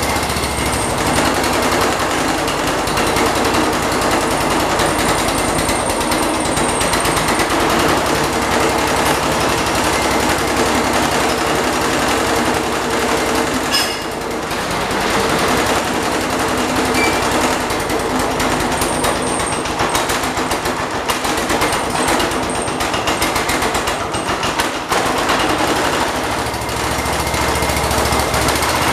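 A 1979 John Deere 214 garden tractor's single-cylinder Kohler engine running steadily with a rapid, even exhaust pulse. Its level dips briefly about halfway through.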